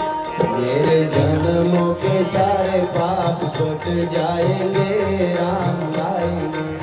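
Live Indian music played through a stage sound system: a steady drum rhythm under a bending, ornamented melody line.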